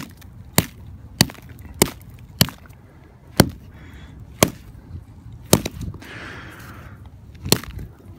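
A hand-held rock pounding on pond ice to chip out an ice-fishing hole: about ten sharp cracking strikes, quick and even at first, then slower with longer gaps.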